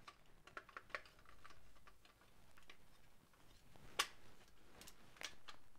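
Faint clicks and taps of plastic toy parts being handled and pushed into place on an action figure's foot, with two sharper clicks about four and five seconds in.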